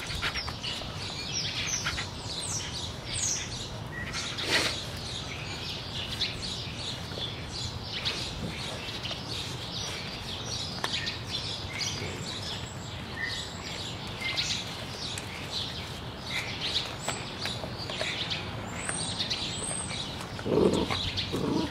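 Small birds chirping over and over, with scattered clicks and crunches from puppies gnawing and tearing at a raw whole chicken on dry leaf litter. A louder, lower sound comes in about a second before the end.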